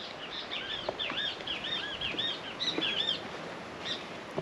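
A songbird singing: a quick string of short, repeated chirping notes for about three seconds, then it stops.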